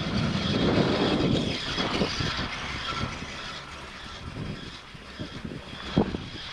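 Chairlift haul rope rumbling over the sheave wheels of a Riblet lift tower as the chair passes it, fading as the chair rides on. One sharp click about six seconds in.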